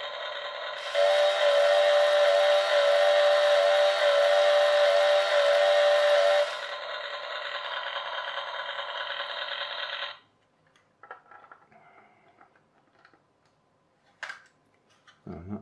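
Workman Klean Kut toy chainsaw's electronic sound effect playing through its small speaker: a buzzy recorded engine running, joined about a second in by a louder cutting sound with a repeating wavering tone for some five seconds, then back to the engine alone until it cuts off suddenly about ten seconds in. The toy's push button sets off the engine sound and the trigger adds the cutting sound. Faint clicks of plastic parts being handled follow.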